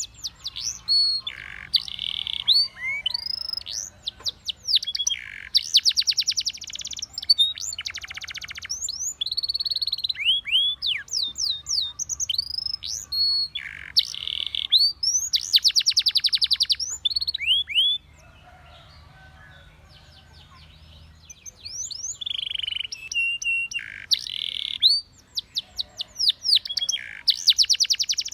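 Spanish Timbrado canary singing a long song of rapid, rattling trills and quick falling whistled notes. The song breaks off for about three seconds past the middle, then resumes.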